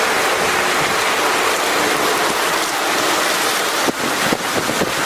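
Loud, steady storm noise of wind and rain against the microphone, with a run of sharp taps starting about four seconds in.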